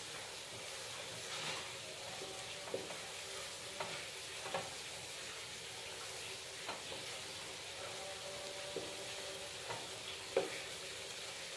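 Macaroni and cheese sizzling gently in a frying pan while a wooden spatula stirs it, with irregular taps and scrapes of the spatula against the pan.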